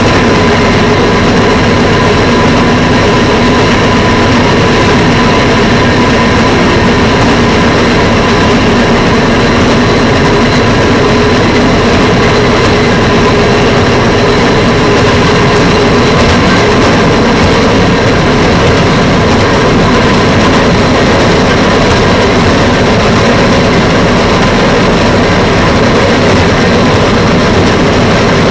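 Steady engine and running noise of the fire-patrol rail vehicle SHX 4033, picked up by a camera mounted on it as it travels along the track. A loud, unbroken sound with a few steady tones held throughout.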